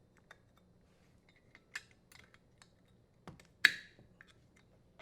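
Scattered small clicks and taps of hand-worked parts, with a sharp, louder click about three and a half seconds in: the strain relief nut being threaded and tightened in the dishwasher's electrical terminal box.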